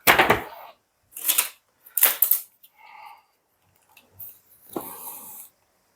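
A handful of short clattering knocks and scrapes, roughly one a second, as objects are shifted on a hard work surface while the corner of a resin-covered board is lifted.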